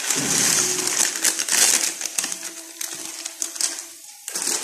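Crushed dry instant noodles pouring and being shaken out of a plastic packet into a wok of simmering peas and broth, a dense rustling patter with the packet crinkling. It is loudest in the first couple of seconds and eases off after.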